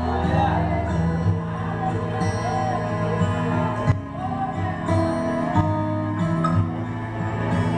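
Worship music playing: a sung melody over sustained bass notes.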